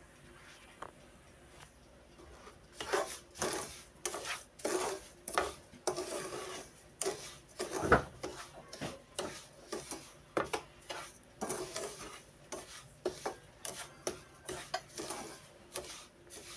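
Wooden spoon scraping and stirring semolina in a pan as it toasts in butter, a run of repeated rasping strokes that starts about three seconds in, with one sharper knock near the middle.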